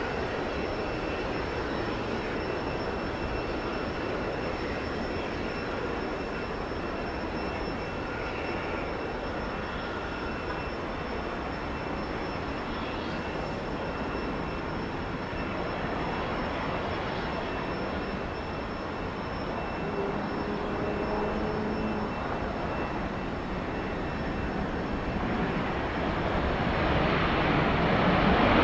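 Jet airliner engines, an Airbus A330-200 on its arrival, making a steady rushing noise that grows louder and brighter in the last few seconds.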